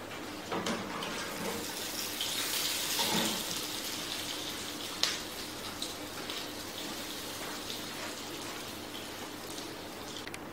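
Water running from a kitchen tap, growing stronger a couple of seconds in and then easing off, with a single sharp knock about five seconds in.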